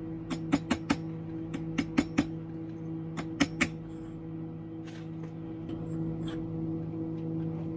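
Sharp metallic clicks and clinks in three quick clusters over the first few seconds, then fainter ticks, as a machined metal part stuck tight on a turned taper is twisted and worked loose by hand, over a steady electrical hum.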